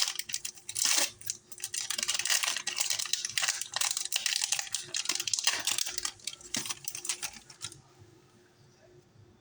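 Foil wrapper of a trading-card pack being torn open and crinkled by hand, a dense crackling that stops about eight seconds in.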